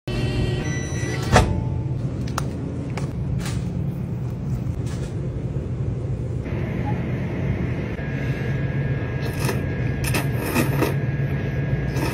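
Steady low electrical hum with scattered clicks and knocks, and one sharp click about a second and a half in.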